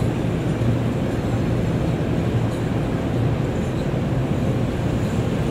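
Tug boat's diesel engine running steadily under load while towing a ship, a low even drone with no change in pitch.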